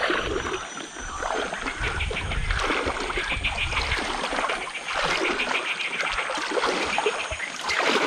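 Muddy floodwater sloshing and splashing around the legs and bicycle wheels of a person wading knee-deep while pushing a loaded bike, swelling and fading with each stride.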